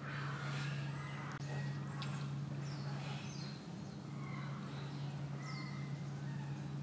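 Birds calling in short, high, falling chirps over a steady low hum.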